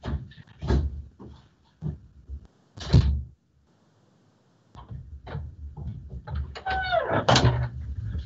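A door and a series of sharp knocks and thumps, as someone comes back in with a delivery. A short wavering pitched sound comes near the end.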